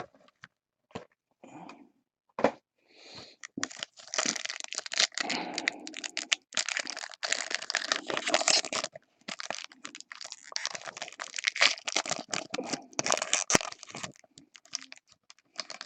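Plastic wrapping crinkling and tearing, with scattered clicks and taps, as a trading-card box is opened and its contents handled. A few sparse clicks come first, then about ten seconds of dense crinkling.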